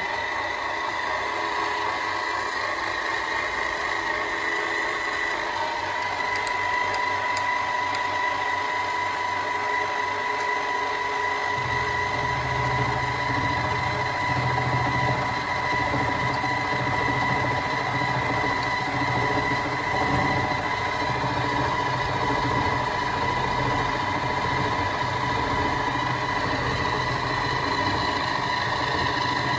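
Milling machine spindle running an 8 mm ball-nose end mill: a steady motor whine with a higher overtone. About twelve seconds in, a lower rumble joins and carries on.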